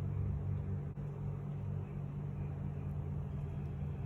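A steady low hum of background machinery, with one faint small click about a second in.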